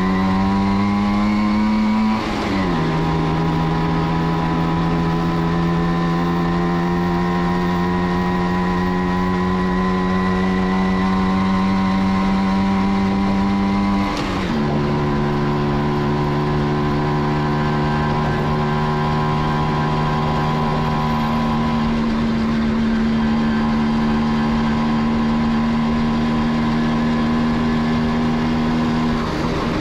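1989 Kawasaki B1's two-stroke single-cylinder engine running under way, its pitch climbing slowly with speed and dropping sharply about two seconds in and again about halfway through, as the rider shifts up a gear.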